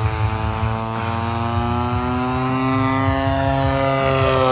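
Radio-control aerobatic airplane's engine and propeller running in flight, a steady drone whose pitch climbs slowly and then falls near the end.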